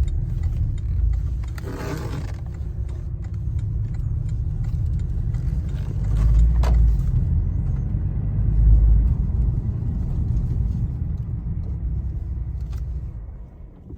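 Porsche Boxster running with a steady low rumble that swells twice in the middle and fades away near the end, with a short click partway through.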